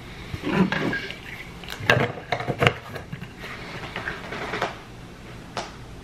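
Short clicks and clatter of a plastic tumbler being handled as its lid and straw are fitted, in bursts about half a second in, around two seconds in, and once more near the end.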